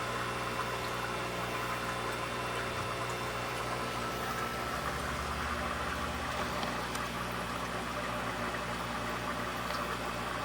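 Fish-room aquarium equipment running: a steady electric hum of pumps under an even bubbling and trickling of water from the tanks' filtration.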